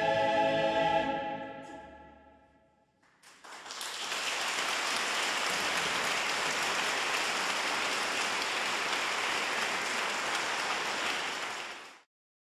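A mixed a cappella choir holds its final chord, which dies away in the hall's reverberation. After a moment's hush, the audience breaks into steady applause, cut off abruptly near the end.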